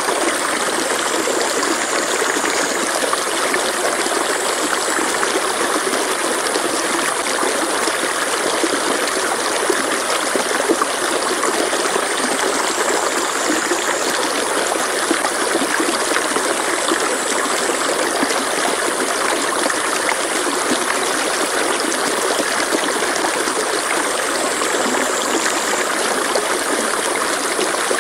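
Stream water flowing and trickling: a steady, even rush of water. A thin high whine above it slides down in pitch and jumps back up, three times.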